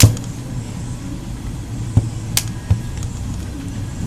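Sharp plastic clicks as a pry pick is run under the seam of a Samsung Admire phone's plastic housing, unsnapping its clips: one loud click at the start, then three more around the middle. A steady low hum runs underneath.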